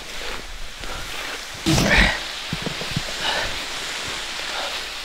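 Scrub branches brushing and rustling against a jacket and the camera as someone pushes through dense bush, with a louder burst of noise about two seconds in.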